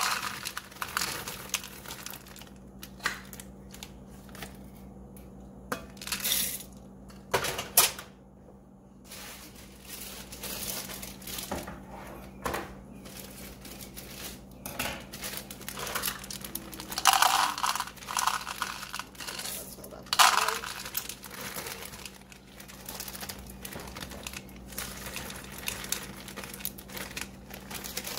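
White chocolate chips scooped from a plastic bag with a plastic measuring cup and poured into a glass bowl, clattering into it in several pours, with the bag crinkling. A faint steady hum runs underneath.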